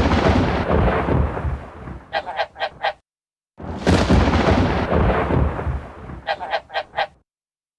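Thunder sound effect: a sudden crack that fades into a rumble over about three seconds, ending in four quick, short calls. The whole effect plays twice, with a brief gap in between.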